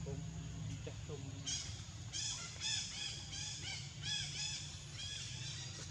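An animal giving a run of short, high-pitched calls, each rising and then falling, about two a second, starting about a second and a half in.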